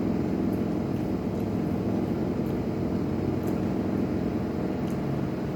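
A steady low droning hum, with a few faint clicks over it.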